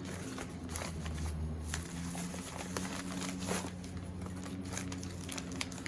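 Crinkling and rustling of paper and plastic packaging as a mail package is opened and handled, in many small irregular crackles. A steady low hum runs underneath.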